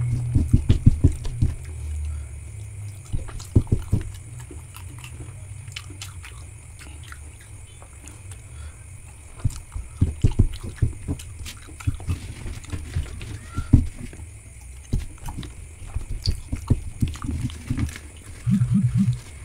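Close-up chewing and mouth sounds of someone eating pork satay, coming in irregular clusters of short low clicks and smacks with pauses between them.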